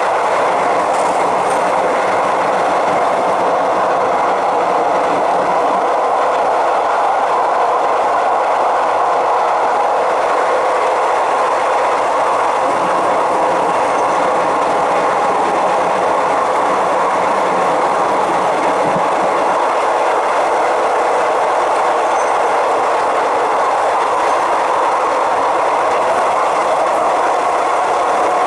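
Bangkok suburban commuter train running at speed on an elevated line: steady running noise of the wheels on the rails.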